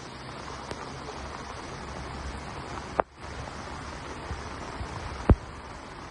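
Muddy floodwater rushing across a road, a steady rushing hiss. A click with a brief dropout comes about halfway through, and a sharp thump, the loudest sound, near the end.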